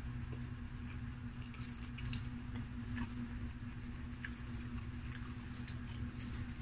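Scattered soft crackles and clicks of a slice of ham pizza being torn off and lifted by hand from the baking paper it sits on, with wet eating sounds, over a steady low hum.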